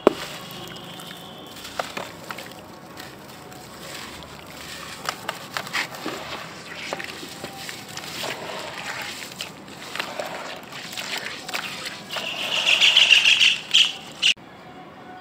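Hands crumbling and squeezing a soft, chalky white block in water in a metal basin: irregular crackling and wet squelching and sloshing. Near the end a louder hissing rush builds for about two seconds, then cuts off suddenly.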